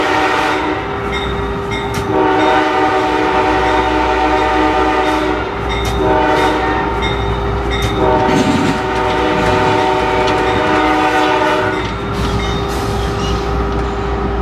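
Locomotive air horn heard from inside the cab, each blast a chord of several notes: one blast ends about a second in, then a long, a short and a long blast follow, the long-long-short-long pattern that signals a grade crossing. A steady low locomotive rumble runs beneath.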